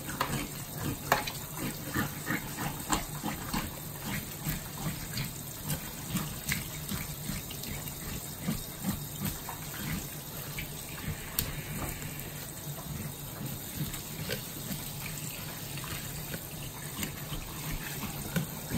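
Kitchen faucet running as a spray onto a fish being rinsed in a stainless-steel sink: a steady rush of water, with frequent small splashes and knocks as the gloved hands turn and rub the fish.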